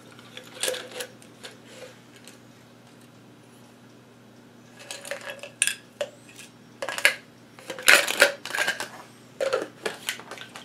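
Small hand tools and a plastic holder handled on a workbench: irregular metal and plastic clicks and clinks, quiet for a few seconds, then a busier run of clatter that is loudest about eight seconds in.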